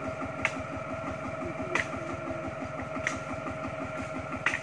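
A small engine idling with a rapid, steady chug. Four sharp clicks, more than a second apart, come over it.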